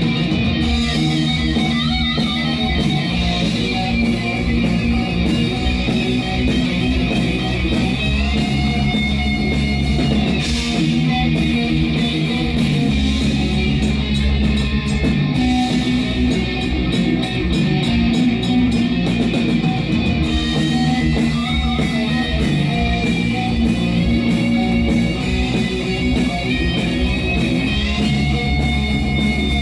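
Heavy metal band playing live: distorted electric guitars over bass and drums, with a stretch of fast, even drumming around the middle.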